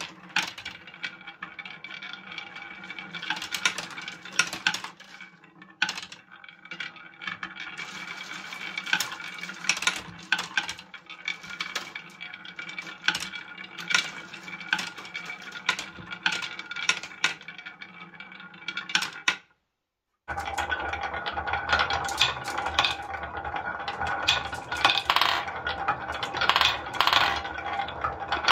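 Painted wooden balls rolling down a wooden marble-run slope and clacking against one another as they drop onto a wooden board, many quick clicks. After a brief silent cut about two-thirds of the way through, glass marbles rolling through wavy-grooved wooden tracks, with a fuller rolling rumble under the clicks.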